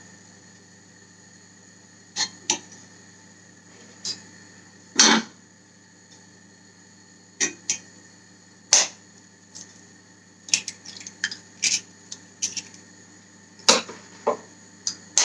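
Scattered sharp taps and clicks of a knife against a frying pan and an eggshell as butter is pushed around the pan and an egg is cracked into it. The loudest knocks come about five seconds in and near the end, over a faint steady hum.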